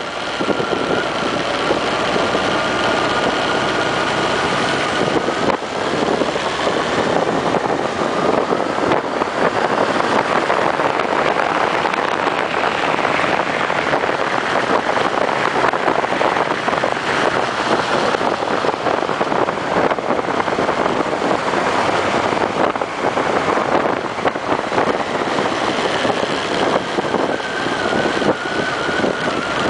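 Honda CB1300 motorcycle under way: its inline-four engine running beneath heavy wind noise on the microphone. The wind is strongest through the middle; the engine note comes through more clearly at the start and near the end, where it rises slightly.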